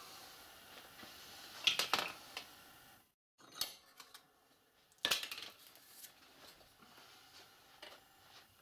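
Light metallic clinks and clatters of small metal parts and hand tools being handled at a bench vise, with one cluster about two seconds in and another about five seconds in.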